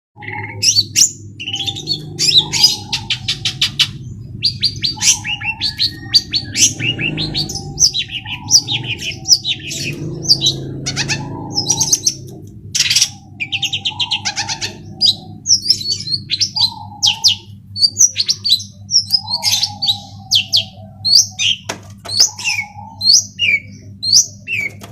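Long-tailed shrike (cendet) singing a fast, varied song of sharp chirps, trills and rapid rattles, with some lower warbled notes mixed in, over a steady low hum. This is the kind of song recording played as a lure ('pancingan') to coax a silent caged shrike into singing.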